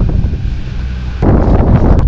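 Wind buffeting the camera's microphone: a rumbling rush with no pitch, which gets louder about a second in.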